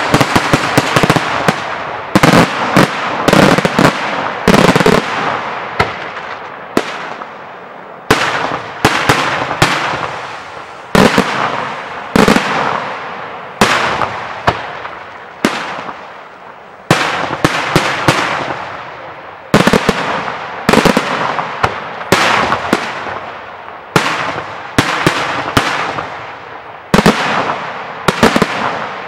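Daytime aerial fireworks shells bursting overhead in a rapid sequence of sharp bangs, about one or two a second and often in clusters of two or three, each trailing off in echo.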